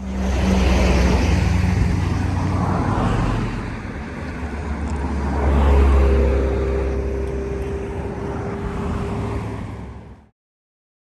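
Motor vehicle engine and road noise, a steady hum that swells about six seconds in, then cuts off abruptly near the end.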